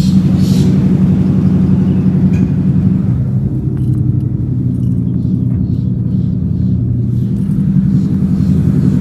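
Ford Mustang GT's 5.0 Coyote V8 running, a steady low rumble whose pitch drops a little about three seconds in.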